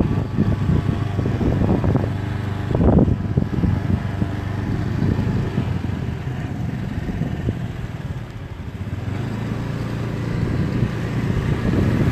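Motorcycle engine running while riding, with wind rumbling on the microphone. The sound dips about eight seconds in and builds again.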